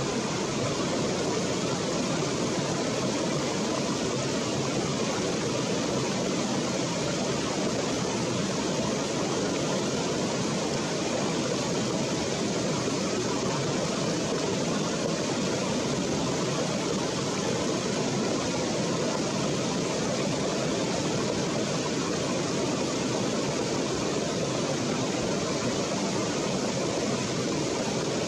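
Steady rushing of a shallow stream flowing over rocks, an even water noise with no distinct events.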